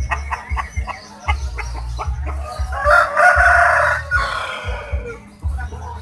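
Rooster crowing once, a long call about three seconds in that falls away at its end, after a few short clucks. The crow is an unusual one that the uploader likens to someone calling the name "Jokowi".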